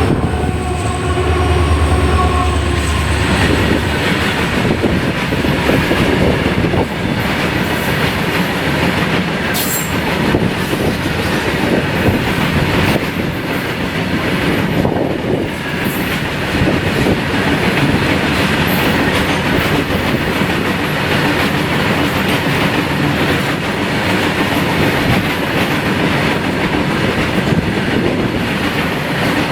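EMD diesel locomotive passing, its horn ending and its engine hum dying away in the first few seconds. The train's cars then roll by with a steady rumble and clatter of wheels on the rails.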